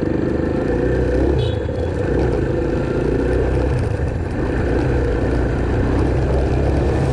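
Trail motorcycle engine running while the bike rides along a dirt and gravel road, heard close up from the bike itself, its pitch rising and falling a little with the throttle.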